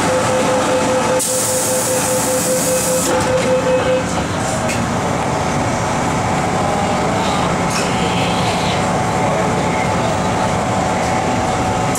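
MTR M-Train electric multiple unit heard from inside the car. Door-closing warning beeps sound rapidly for about four seconds, with a burst of hiss partway through. Then the doors shut and the train pulls away, its running noise steady with faint wheel squeals.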